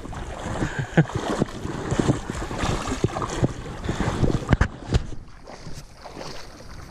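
River water sloshing and splashing against a camera held at the water's surface, with irregular knocks and splashes that ease off about five seconds in.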